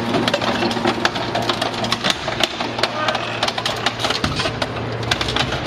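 Hydraulic scrap metal baler-shear working: the steady hum of its hydraulic power unit, with many irregular metallic clanks and crunches as the ram comes down on the scrap.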